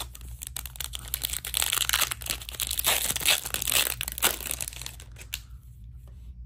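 Foil wrapper of a hockey card pack crinkling and tearing as it is ripped open by hand, loudest in the middle, stopping about five seconds in.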